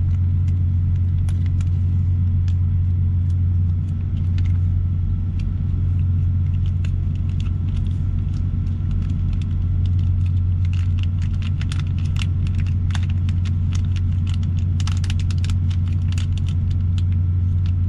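A parked semi truck's diesel engine idling with a steady low drone. Small clicks and crinkles of food packaging being handled sit over it, mostly in the second half.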